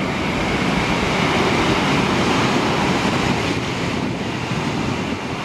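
Adelaide Metro 4000-class electric train running express through a station at speed without stopping: a steady loud rush of wheel and air noise as it passes close by.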